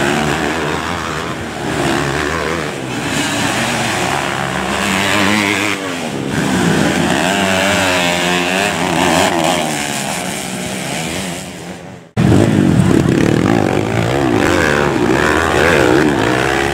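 Dirt-bike engines revving hard as the bikes race on a dirt track, their pitch rising and falling with throttle and gear changes. The sound drops out for a moment about twelve seconds in, then comes back louder as several bikes come up the straight.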